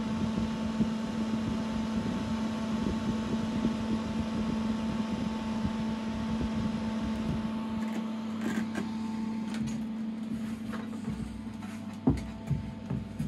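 Cooling fan of a Karl Storz 600 endoscopy flash generator running with a steady hum and whir. A few sharp clicks come near the end.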